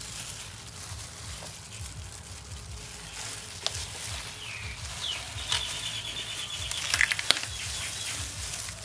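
Banana leaf rustling and crinkling as gloved hands fold and press it into a packet, with a few sharp clicks about seven seconds in. A high, pulsing chirp sounds over the last few seconds.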